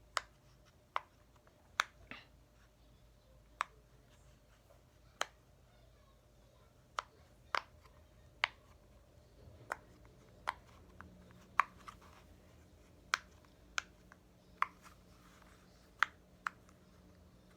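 Sharp, irregular clicks from fidget toys being handled, roughly one a second. A faint steady hum comes in about ten seconds in.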